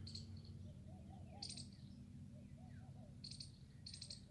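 Faint outdoor birdsong: short clusters of high chirps about once a second, with softer groups of three low, curved notes in between.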